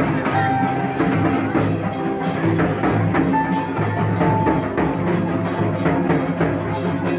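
Music with a steady drum beat and held melody notes.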